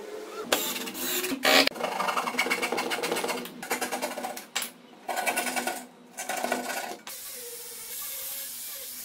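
Cordless drill/driver running in repeated trigger bursts, driving screws into the pine frame of a pallet-wood table, with short pauses between screws. Near the end it gives way to a quieter steady hiss from a small handheld power tool worked along the frame.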